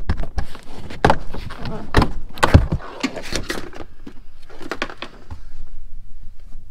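Plastic interior C-pillar trim panel of a car being pulled loose by hand: a run of sharp clicks and knocks as its clips pop free, with plastic scraping and rubbing in between, the loudest knock about two and a half seconds in.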